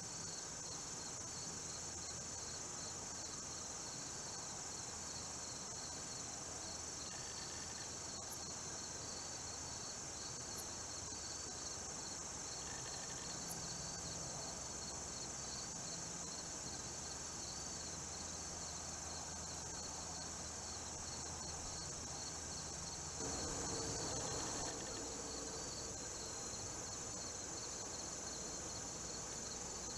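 Steady high-pitched insect chorus, a continuous trill with a faster pulsing one beneath it. A few faint ticks sound in the first half, and about two-thirds of the way through a brief louder rustling noise lasts a second and a half.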